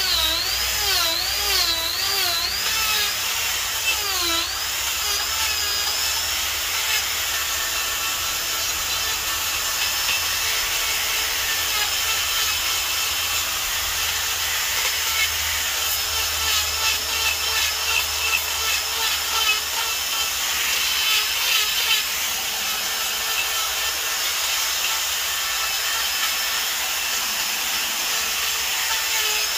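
Electric die grinder running at high speed with a carving burr grinding into wood. The motor's whine wavers up and down in pitch for the first few seconds as the burr bites and eases off, then holds steadier under the rasp of the burr on the wood.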